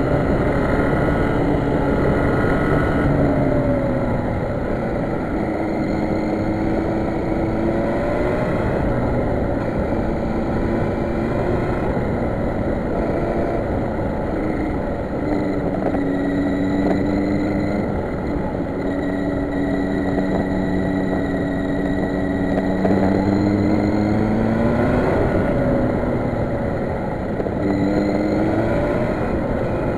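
Motorcycle engine running at speed, its note rising and falling several times with throttle and gear changes through the bends, over a steady rush of wind noise.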